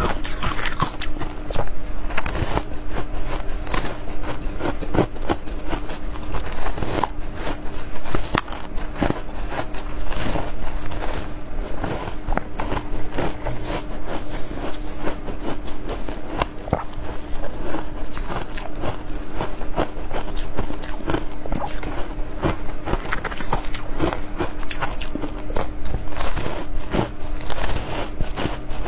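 Biting and chewing blocks of compressed shaved ice coated in matcha powder: a dense run of crisp crunches and crackles as the ice breaks between the teeth. A steady low hum runs underneath.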